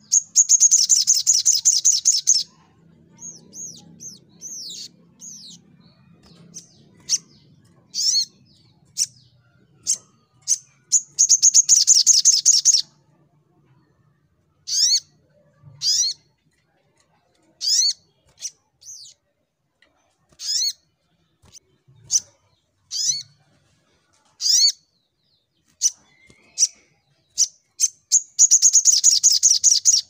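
Caged sunbird (sogok ontong) singing hard: three loud, fast, high trilled bursts of about two seconds each (at the start, around the middle and near the end), with many short sharp chirps between them.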